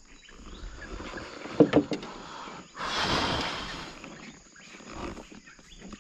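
A couple of sharp knocks, then water splashing for about a second as a wire cage trap is pulled from the river beside the boat.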